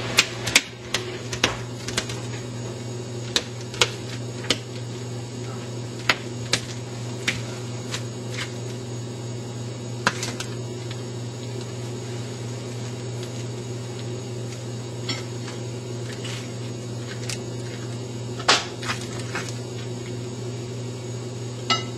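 A knife slicing banana into chunks, its blade clicking and tapping against the tray while the pieces are set down, scattered sharp taps over a steady low hum.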